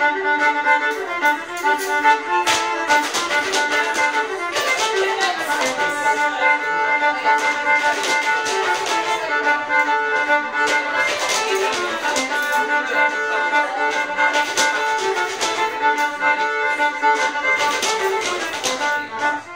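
Fiddle playing a traditional dance tune for a rapper sword dance, with sharp taps and clacks scattered through it.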